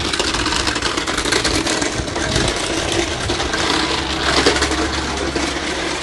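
Small plastic wheels of a toy Henry vacuum cleaner rattling and scraping as it is dragged along rough tarmac by its hose: a continuous gritty clatter full of tiny clicks.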